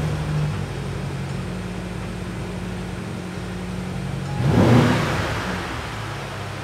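BMW M5 CS's 4.4-litre twin-turbo V8 idling through its quad exhaust, with one short rev blip about four and a half seconds in before it settles back to idle.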